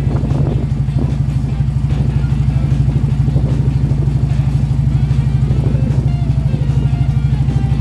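Cruiser motorcycle engine running steadily at cruising speed, its fast, even firing pulse unbroken, with background music mixed in.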